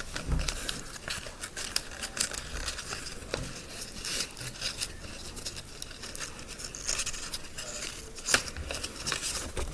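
A sheet of paper being folded and creased by hand, with irregular crinkling rustles and short sharp crackles as the folds are pressed down.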